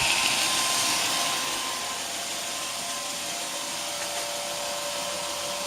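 2x72 belt grinder running with its contact wheel attachment: a steady whir and hiss of the belt and 1.5 kW motor, set to 57 Hz on the drive, which is quite quiet. It settles a little quieter about a second and a half in.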